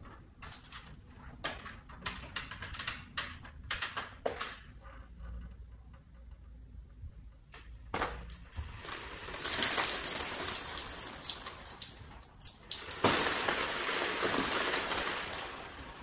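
Sharp, irregular clicks and knocks of feet and hands on an aluminium stepladder, then a steady hissing rush as salt water is poured from a cup over salt crystals and an iron rail on an acrylic shelf, broken by a single knock about thirteen seconds in.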